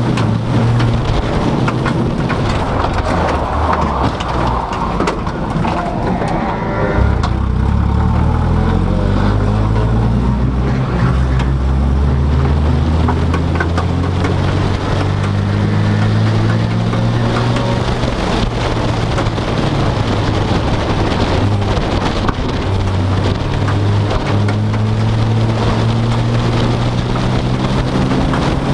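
Car engine and road noise heard inside the cabin while driving, the engine note rising and falling with speed and gear changes.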